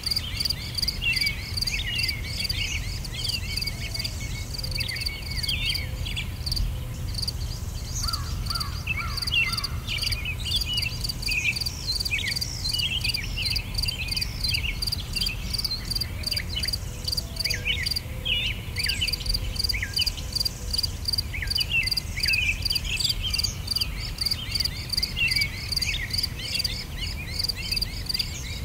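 Nature ambience of insects chirping in a fast, even pulse, with many quick bird chirps over it and a steady low rumble underneath.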